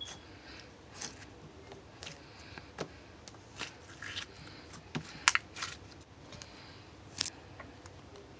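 Slime being squished and poked by hand, giving irregular wet clicks and crackles, the sharpest about five seconds in.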